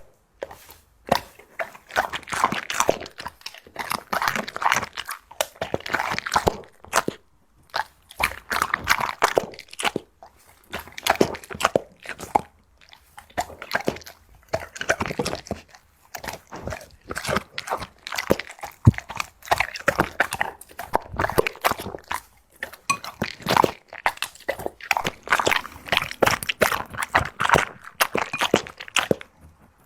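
A dog crunching and chewing its food, in runs of bites a second or two long with short pauses between them.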